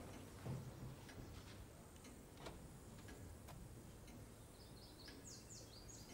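Near silence with faint ticking about once a second, and a short run of high chirps falling in pitch near the end.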